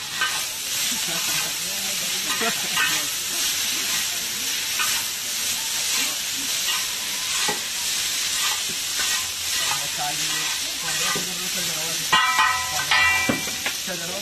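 Veg chowmein noodles sizzling on a hot flat iron griddle while being stirred and tossed, with a steady frying hiss and repeated scrapes and knocks of a metal spatula and tongs on the iron. Near the end come two louder ringing metal strikes.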